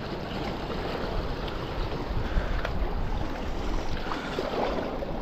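Sea waves washing against shoreline rocks, with wind rumbling on the microphone.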